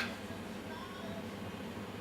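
Quiet room tone with a low steady hum; no distinct event.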